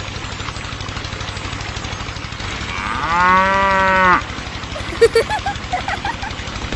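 A cow moos once, a loud, long call of about a second and a half, over the steady putter of a small engine. A few brief, fainter calls follow about a second later.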